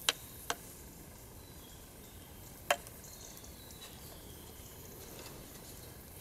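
Campfire burning with a steady low hiss and three sharp cracks of wood. Two come close together at the start and one more comes about two and a half seconds in.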